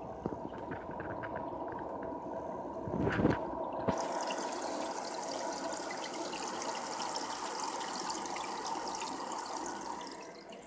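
Aquarium water trickling and splashing steadily at the tank's surface, starting about four seconds in and fading near the end. A few bumps of handling are heard just before it starts.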